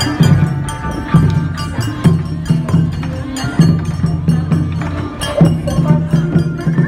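Japanese bon odori dance music: a folk song with a steady, repeating drum beat and sharp percussive clicks.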